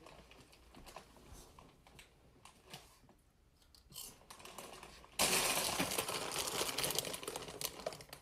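Soft typing clicks on a laptop keyboard. About five seconds in, a crinkly chip bag starts rustling loudly as it is snatched and handled, and it keeps rustling to the end.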